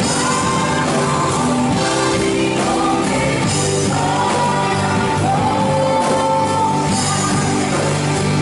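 Live church worship band playing a rock-style praise song, with a singer over drums and guitar.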